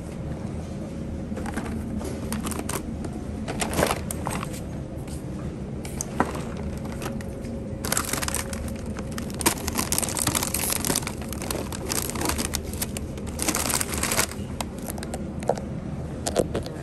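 Crinkly material being handled: bursts of crinkling and rustling among scattered clicks, heaviest about eight seconds in and again around thirteen to fourteen seconds, over a steady low hum.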